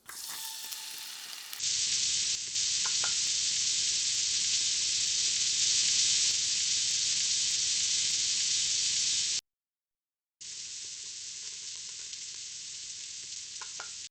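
Food frying and sizzling in hot oil in a pan. The sizzle grows loud about a second and a half in, cuts off for about a second past the middle, and comes back quieter.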